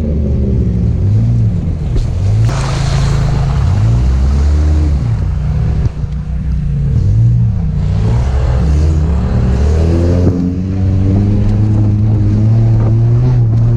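Volkswagen Beetle's engine revving up and down again and again as the car is driven off-road, with two bursts of rushing noise, about two and a half seconds in and around eight seconds in.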